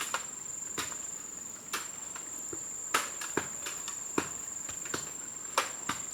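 Steady high-pitched insect drone, with scattered sharp clicks and knocks at irregular intervals.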